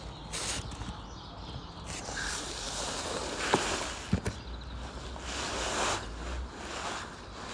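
Rustling and shuffling as clothing and heavy boots move against a wooden bench, in short stop-start bursts, with two light knocks near the middle.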